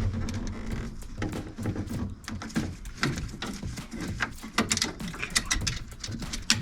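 Irregular clicks, knocks and rattles of the door lock actuator and its linkage being manoeuvred loose inside a VW New Beetle door.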